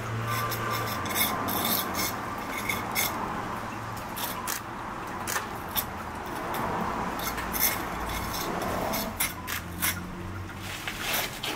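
Steel brick jointing iron scraping and rubbing along the mortar joints of brickwork as the new pointing is tooled: repeated uneven strokes with small clicks of metal on mortar and brick.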